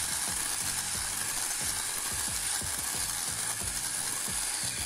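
Electric hand mixer running steadily, its beaters whisking a thin, liquid cake batter of beaten eggs, sugar, oil and milk in a glass bowl.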